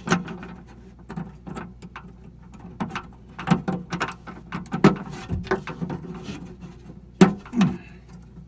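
Irregular clicks, taps and knocks of door latch rods being worked and pressed into their retainer clips inside a 1965 Ford Mustang door, with the loudest knocks about seven seconds in.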